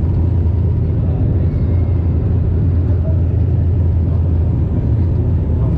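Cabin noise of a DHC-8 Q400 turboprop: a loud, steady low drone from its engines and propellers, with no change in pitch or level.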